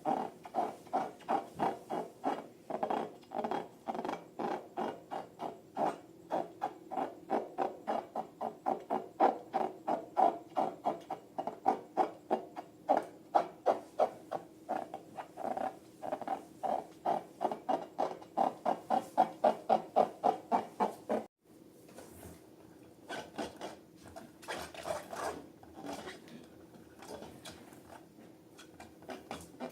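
Slime being squeezed and worked by hand: a rhythmic squelching about three times a second. It cuts off suddenly about two-thirds of the way through, followed by quieter, irregular squishing.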